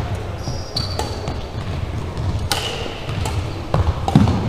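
Badminton rally: several sharp racket hits on the shuttlecock, the loudest about two and a half seconds in, with short sneaker squeaks on the hardwood court, over the low hum of a large gym.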